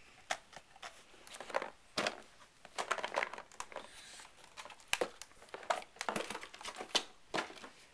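A cardboard box and plastic packaging being handled, crinkling and rustling with irregular knocks and scrapes.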